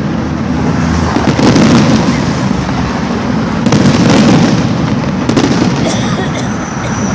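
Fireworks going off in a dense, continuous barrage of bangs and crackling, swelling and easing in loudness. A thin high whistle comes in near the end.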